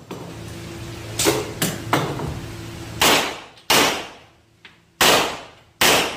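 A string of pistol shots from a Rock Island Armory Tac Ultra FS HC, fired one at a time and in quick pairs about a second or two apart, each report ringing on briefly in the indoor range.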